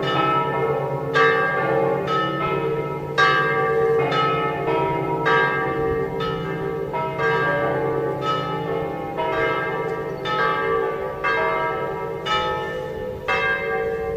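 The bells of St Mark's Campanile in Venice ringing: strokes come about once a second, each one ringing on into the next, over a steady hum.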